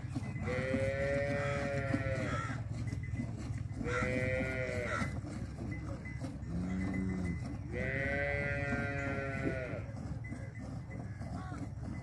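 Livestock calling: three drawn-out bleating calls, each rising then falling in pitch, about half a second, four and nearly eight seconds in, with one short, lower call between the second and third.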